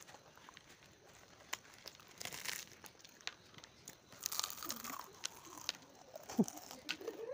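Close-miked eating: crunchy, crumbly food is crunched and chewed with wet clicks and smacks of the mouth, and fingers rustle through the food on the plate. The busiest crunching comes around the middle, as a big handful goes into the mouth.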